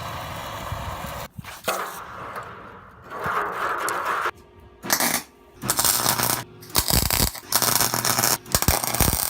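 Metal clinking and scraping in short bursts that start and stop sharply, over a steadier noisy stretch in the first few seconds.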